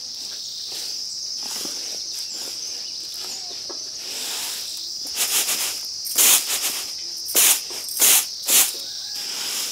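Rice being winnowed on a round winnowing tray: about five loud rushing swishes of grain tossed and caught on the tray in the second half, over a steady chirring of crickets.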